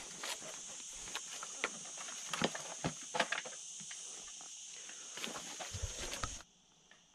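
Irregular footsteps clacking on rocky ground, over a steady high-pitched drone. All of it cuts off abruptly about six seconds in.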